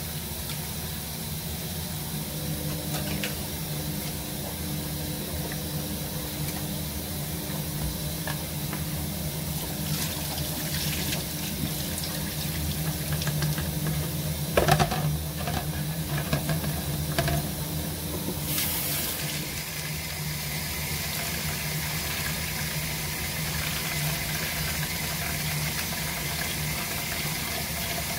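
Water sloshing as hands rinse whitebait in a bowl at a kitchen sink, then water draining and trickling through a stainless-steel sieve as the fish are handled. There is a brief knock about halfway, and a steady low hum underneath.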